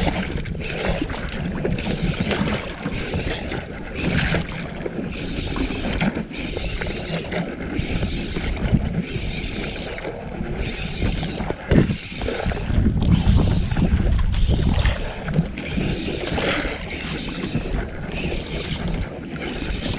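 Sea water lapping and slapping against the hull of a small outrigger boat, with wind on the microphone.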